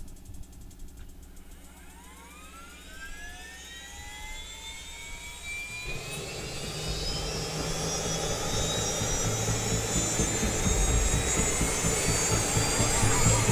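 Helicopter turbine engine starting up: a whine that climbs steadily in pitch as the turbine spools up. A low rumble joins about six seconds in, and the sound grows louder throughout.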